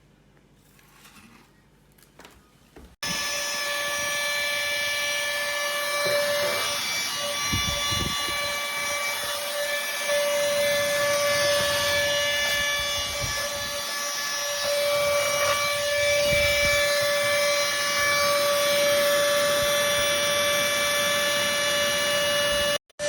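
Cordless handheld mini vacuum running: a steady motor whine that starts abruptly about three seconds in, with a few low bumps as it is worked over a surface, cutting out for a moment near the end.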